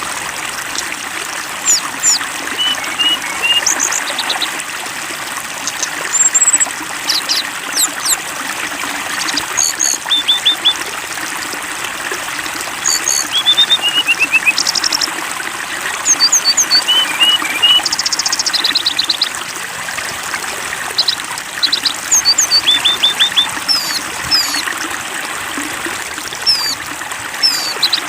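Water trickling steadily, with small birds chirping over it in short high notes and quick trills that recur every second or two.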